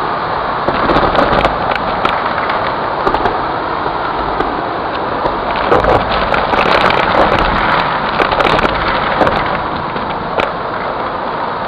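Vacuum cleaner running steadily through a narrow wand nozzle as it sucks up crinkly foil and cellophane pieces, with frequent crackles and ticks as bits rattle up the tube, busiest in the middle.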